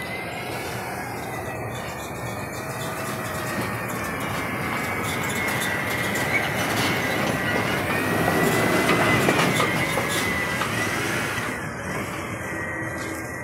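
Natural-gas Waste Management front-loader garbage truck driving past close by, its engine rumble growing louder toward the middle and then easing off, with a steady high whine running over it.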